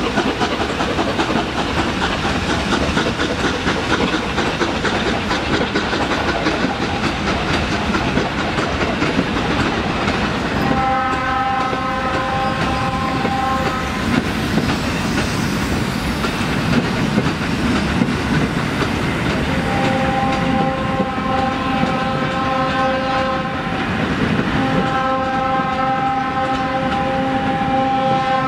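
ČSD class 475.1 steam locomotive departing with its passenger train, the carriages' wheels clattering over the rails as they roll past. The locomotive's whistle sounds three long blasts on one note: about eleven seconds in, about twenty seconds in and again near the end.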